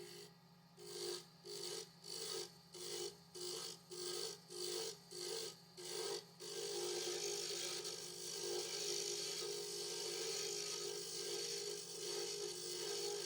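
A tool or abrasive rubbing against a spinning willow pen blank on a wood lathe, over a steady machine hum: about ten short scraping strokes, roughly two a second, then unbroken contact from about halfway.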